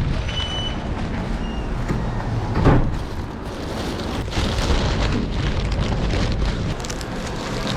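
Steady outdoor street noise with traffic rumble, with one louder swell a little under three seconds in.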